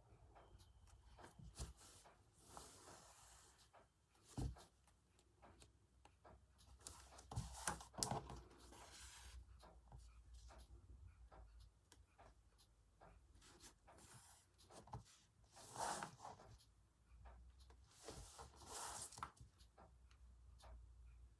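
Faint, intermittent rustling and scratching of hand embroidery: a needle and thread pulled through fabric several times, with small ticks between the pulls.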